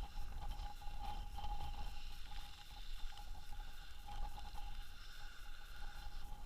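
Wind buffeting the microphone as a fluctuating low rumble, with a faint steady whine that fades in and out.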